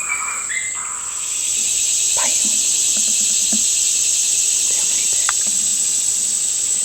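Steady, high-pitched chorus of insects in the woods, growing louder about a second and a half in, with a few faint ticks.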